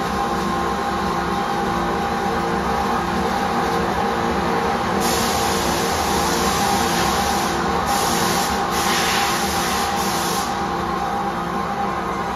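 CNC lathe running with a steady machine hum while an internal boring or threading bar cuts inside the bore of a spinning steel pipe end. From about 5 s to 10.5 s a hissing cutting noise rises over the hum in a few spells, as chips come off the insert.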